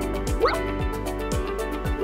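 Upbeat background music with a steady beat of about two beats a second. A short rising "bloop" pop sound effect plays about half a second in, and another comes at the very end.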